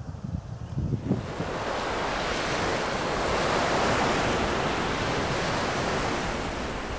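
Wind buffeting the microphone for about a second, then an even rushing noise, like surf or wind, that swells to a peak near the middle and slowly fades.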